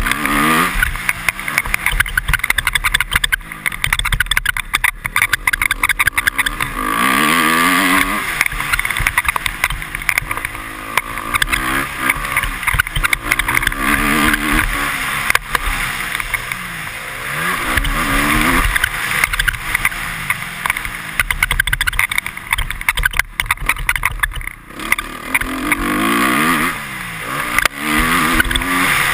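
Honda CRF250R single-cylinder four-stroke motocross engine under hard riding. It revs up and drops off again and again through gear changes and turns, with knocks over bumps.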